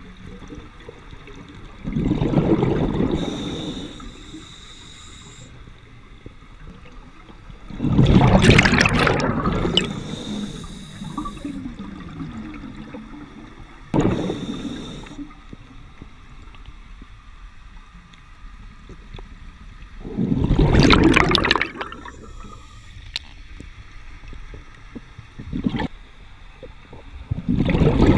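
Scuba regulator breathing heard underwater: a loud rush and gurgle of exhaled bubbles about every six seconds, five times, with a quieter hiss between breaths.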